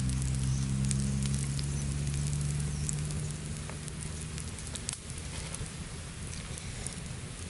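Wood fire crackling under a flat stone slab, with a steady hiss and sizzle from liquid on the hot stone and many sharp pops. A low hum fades out over the first three seconds.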